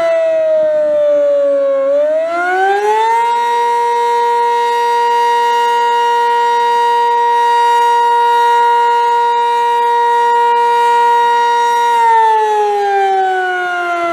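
Sentry 15V2T dual-tone civil defense siren wailing, most likely on its Attack signal: the pitch winds down to its low point, rises back up about two seconds in, holds steady for about nine seconds, then winds down again near the end. The long steady holds make the attack sound unusually like the fire signal.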